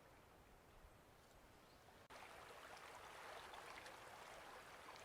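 Faint outdoor ambience; about two seconds in, a sudden cut to a louder, steady rushing hiss with faint scattered ticks.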